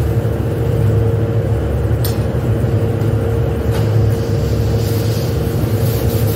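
Steady drone of factory machinery: a low hum with a constant higher tone running under it. A couple of brief, sharp noises come about two and four seconds in.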